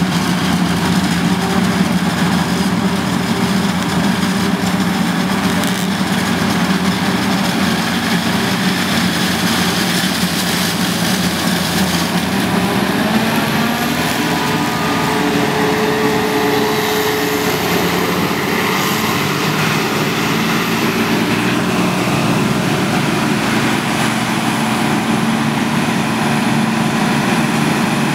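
John Deere self-propelled forage harvester chopping maize for silage, its engine and cutting drum giving a loud, steady drone, mixed with the engine of the tractor hauling the trailer alongside. The pitch of the drone shifts slightly about halfway through.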